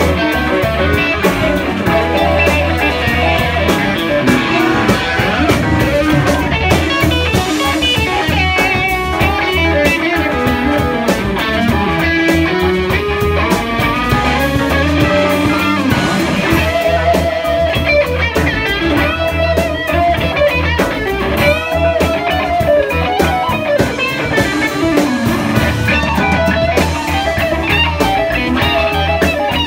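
Live rock band playing an instrumental passage: an electric guitar leads over a drum kit.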